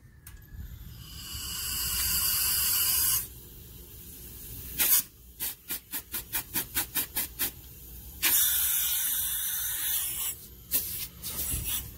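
Refrigerator compressor blowing high-pressure gas out of the open copper line where the filter drier was cut off: a loud hiss that starts about half a second in, breaks into a quick run of even puffs as the tube end is capped and released by a finger, hisses again and ends in a few short spurts. The strong blow-out shows the compressor is pumping plenty of pressure.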